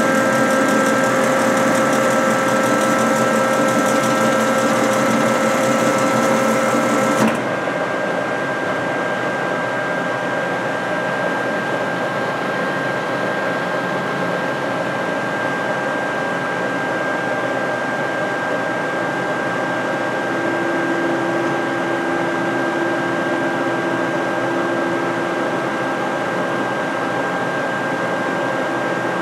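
A Peerless tilting-head vertical band saw runs with no workpiece, its drive motor and blade giving a steady hum and whine. About seven seconds in, the sound drops suddenly in level and loses its high hiss and some of its tones. Later a new, lower steady tone joins it.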